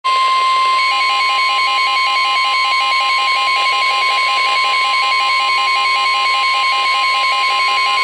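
Midland weather radio sounding a severe thunderstorm warning alert: the NOAA Weather Radio warning alarm tone, one steady high tone, with the radio's own rapid beeping alarm, about five beeps a second, joining about a second in.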